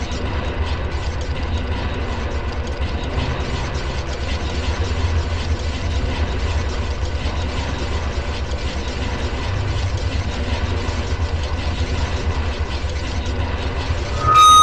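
A steady low rumbling drone with a fast, even throb. At the very end a loud, high, steady tone with overtones sets in.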